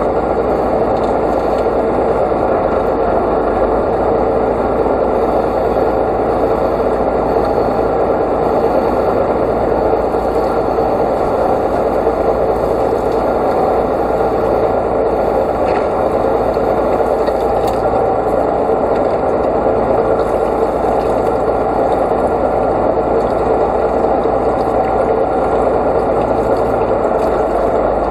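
An engine running steadily: a loud, dense, even noise that does not change.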